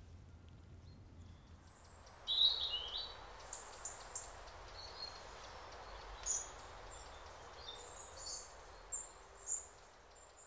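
Birds chirping over steady, faint outdoor background noise: a quick run of chirps about two seconds in, then scattered short, high chirps until near the end.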